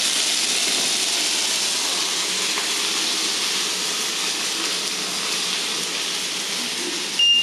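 Chicken skewers sizzling steadily on a hot ridged grill pan.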